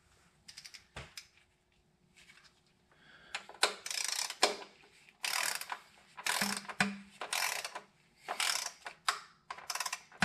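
A ratchet running bolts into a transmission pan, clicking in short bursts. After a few faint clicks the bursts come one after another from about a third of the way in.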